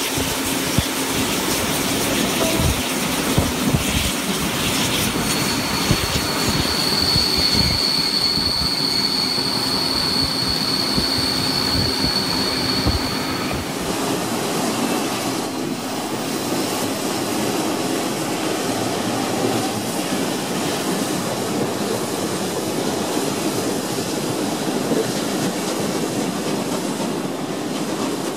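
Steam-hauled heritage passenger trains running on rails: wheels clattering over the track, with a steady high-pitched wheel squeal for several seconds in the first half. After a change about halfway through, a train of carriages rolls steadily past.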